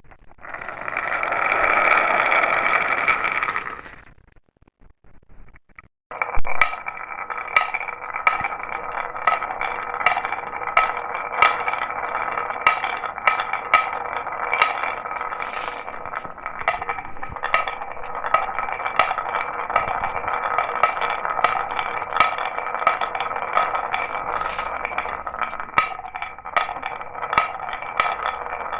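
Glass marbles running down a marble run track. A loud rushing rattle lasts about four seconds and stops, then after a short pause a long, steady rolling hum starts, dotted with many sharp clicks and clinks as the marbles knock against the track and each other.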